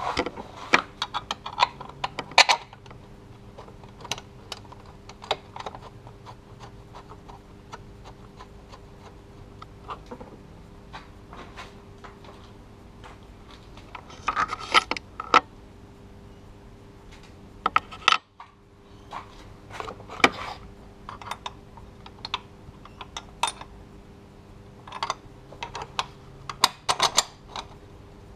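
Small metallic clicks and clinks of hand tools and engine parts being handled, coming in a few short clusters over a steady low hum.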